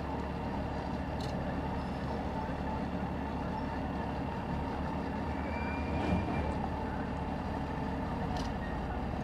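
Heavy tow truck's diesel engine running steadily under load as its winch pulls an overturned minibus back upright.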